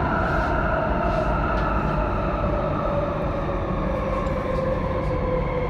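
Electric metro train running through a tunnel, heard from inside the train: a steady rumble of wheels on rails with a motor whine that slowly falls in pitch.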